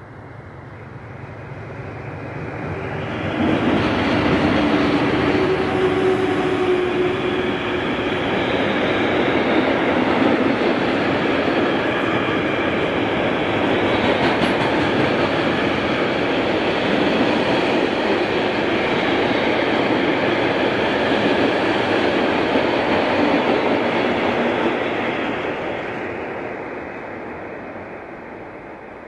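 Long freight train hauled by red SBB electric locomotives running through a station. It grows louder as it approaches, and the locomotives pass with a steady tone about four seconds in. A long string of open freight wagons then rumbles and clatters over the rails for some twenty seconds before the sound fades near the end.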